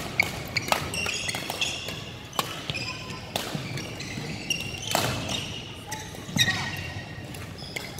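A racket-sport rally on a hard court: sharp racket hits, often a second or two apart, with shoes squeaking in short high squeals on the court floor between them.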